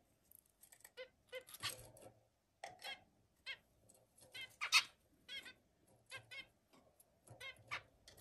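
Zebra finches giving short calls, about a dozen spread irregularly through the stretch, the loudest one about halfway through.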